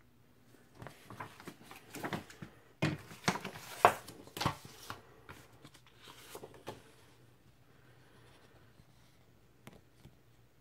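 Paper and cardboard handling: a vinyl LP jacket, poster and printed insert rustling and crinkling. A busy run of rustles and taps over the first seven seconds or so, loudest about four seconds in, then only a few faint clicks.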